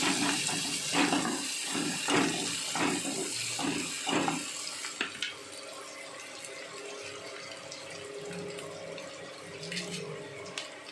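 Onions and ginger-garlic paste sizzling in a kadai while a spatula stirs and scrapes the pan about twice a second for the first four seconds or so. After that the stirring stops and a quieter, steady sizzle goes on.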